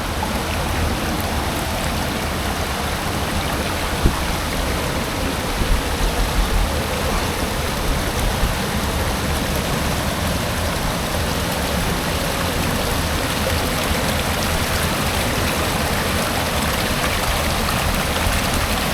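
Fast river water rushing over rocky waterfalls, a steady full roar of falling water. A few brief low bumps come about five to eight seconds in.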